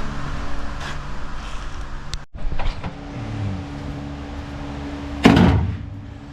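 Steady low hum with light handling noise, and a single loud clatter about five seconds in.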